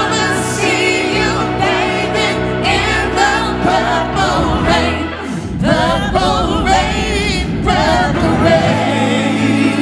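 A live band holds sustained chords under wavering wordless vocal ad-libs, with backing singers joining in, as a gospel-tinged ballad draws to its close.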